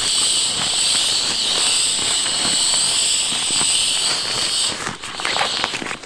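Air hissing steadily out of the open valve of an inflatable sleeping mat as it is rolled up tight, cut off suddenly about three-quarters of the way through. Crackling and rustling from the mat's fabric being pressed and rolled throughout.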